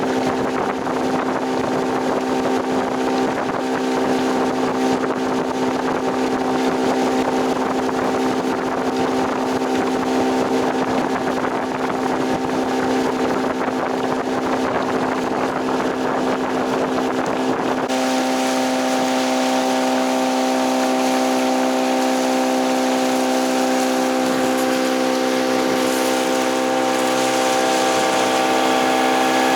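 A motorboat's outboard engine running steadily as the boat moves, with a wash of wind and water noise. The engine's tone shifts abruptly a little over halfway through.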